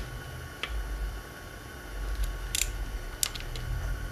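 Quarter-inch drive socket tool tightening a small oil pump bolt: a few scattered light metallic clicks, one about half a second in, a couple around the middle and a quick cluster near the end, over a low background hum.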